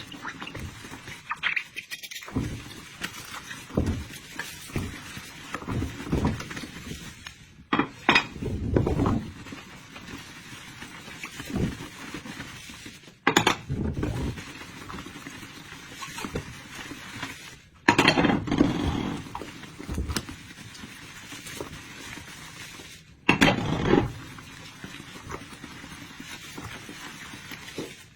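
Kitchen work sounds: dishes, pots and cutlery being handled and clinking, with a louder clatter or knock every five seconds or so.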